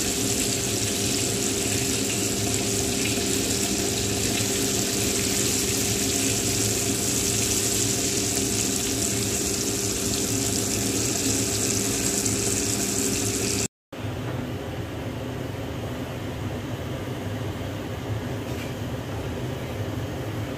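Battered chicken fillet pieces deep-frying in hot oil in a wok, a steady loud sizzle with a low hum under it. It cuts off about fourteen seconds in, leaving a quieter steady hum.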